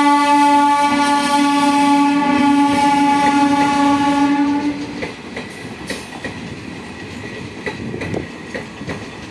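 Diesel multiple unit train's horn held in one long steady blast, which stops about four and a half seconds in. It is followed by the quieter clickety-clack of the coaches' wheels over rail joints as the train runs on.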